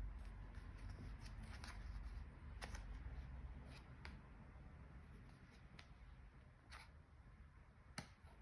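Faint handling of tarot cards on a table: a few soft, scattered clicks and slides as the cards are touched and moved, over a low room rumble.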